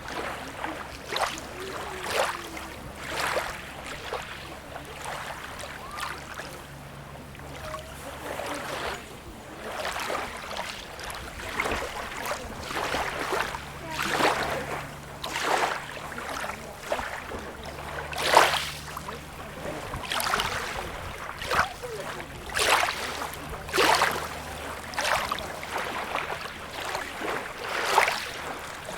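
Small sea waves lapping and splashing at the shore in short, irregular splashes about once a second, over a faint low hum.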